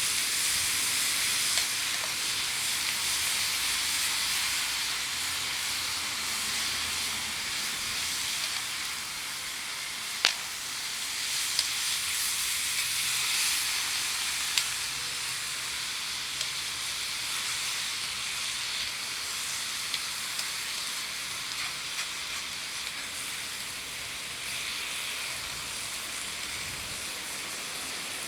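Vegetables sizzling in a frying pan over a campfire: a steady hiss with a few sharp clicks from the pan now and then.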